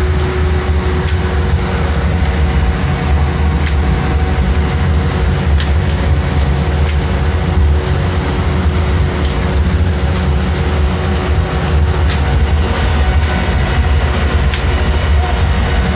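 A fishing boat's engine running steadily, a continuous low rumble with a few light ticks over it.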